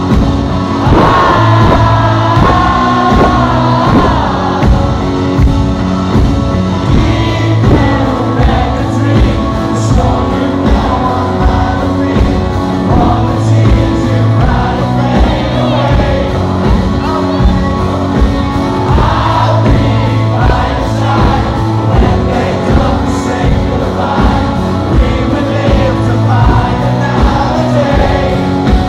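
A rock song played live by a band, with a male lead vocal over a steady drum beat and sustained bass and keyboard chords.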